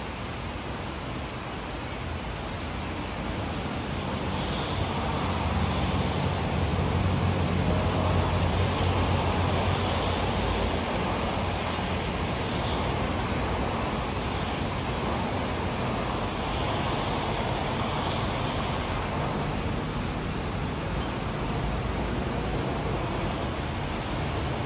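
Steady hiss of rain with road traffic; a vehicle passes on the wet road, its low rumble swelling a few seconds in and fading away. A few faint short high chirps come in the second half.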